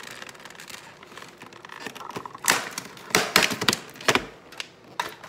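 Plastic bakery cake container being opened and handled: a string of sharp plastic clicks and crackles, sparse at first, then loud and close together from about halfway through.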